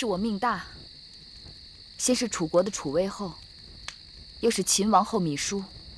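Crickets chirring steadily as a night-time background, under a woman's spoken dialogue.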